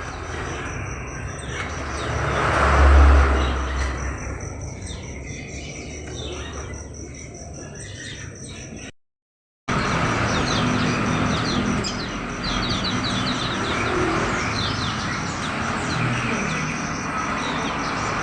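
Many caged songbirds chirping and calling over one another in quick, short notes. A low rumble swells and fades about three seconds in, like a vehicle passing. The sound drops out briefly about nine seconds in.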